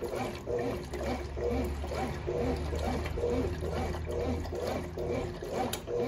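Brastemp Baby Mondial BLK20 top-loading washing machine in its wash stage, the agitator swishing a load of towels back and forth through a full tub of water at about two strokes a second. A low motor hum runs underneath.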